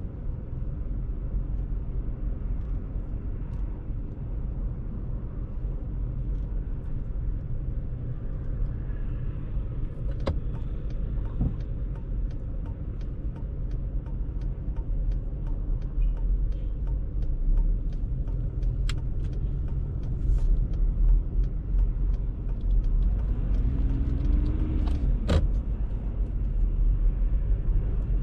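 Steady low rumble of a car driving slowly in dense city traffic, with a few faint clicks and a short whine that rises and falls near the end.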